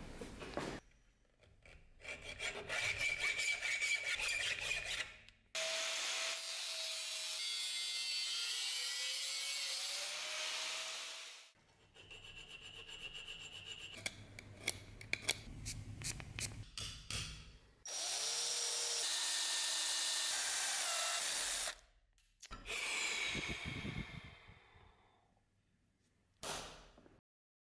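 Steel threaded rod in a bench vise being worked with hand tools, in runs of quick scraping strokes, alternating with two long stretches of a power tool running steadily.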